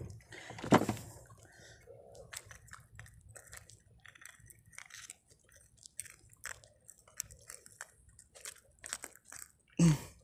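Irregular small clicks and crackles of close handling around a freshly caught grouper, with a short voice sound near the start and again just before the end.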